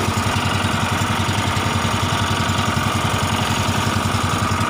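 Fishing boat's engine running steadily with a fast, even pulse.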